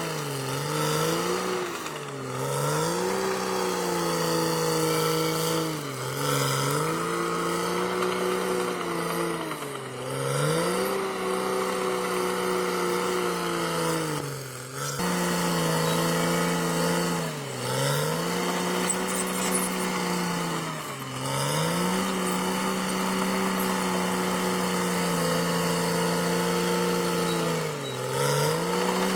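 Caterpillar D6R XL bulldozer's diesel engine running hard and steadily, its speed sagging briefly and recovering every few seconds.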